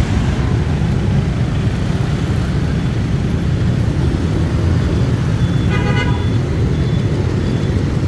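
Dense street traffic running steadily, with a vehicle horn honking briefly about six seconds in.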